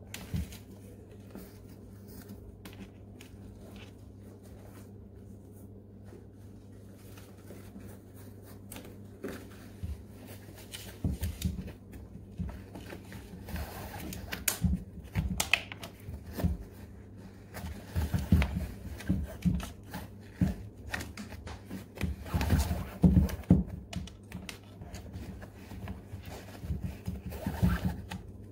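A shoelace is pulled out through the eyelets of a Nike SF Air Force 1 high-top sneaker, making irregular rustling, scraping and light tapping. The handling sounds start about ten seconds in and grow busier toward the end, over a low steady hum.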